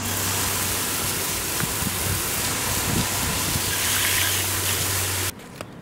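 A water jet from a hose sprays onto an alloy wheel and tyre, rinsing off wheel cleaner. It makes a dense, steady hiss of spray with a low hum beneath it, and cuts off abruptly a little after five seconds in.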